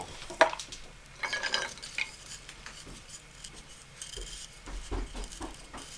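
Cloth rubbing paste wax onto a wooden chair spindle, with brief scratchy rubbing and small clicks and knocks of the wooden parts being handled on a workbench.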